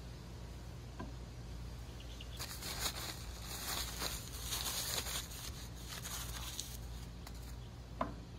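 Outdoor ambience with a steady low rumble; about two and a half seconds in a high, crackling hiss sets in and fades out after about five seconds. Near the end comes a single sharp tap as a hand takes hold of a glass Erlenmeyer flask on the wooden table.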